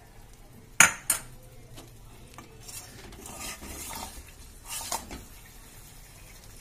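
Spatula stirring thick chicken korma in a metal pot, scraping against the pot. There are a few sharp clacks, the loudest two close together about a second in.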